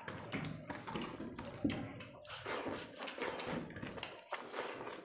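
Wet, squelchy eating sounds: fingers mashing rice into chicken curry on steel plates, with chewing and lip-smacking. Irregular sharp clicks and smacks come throughout.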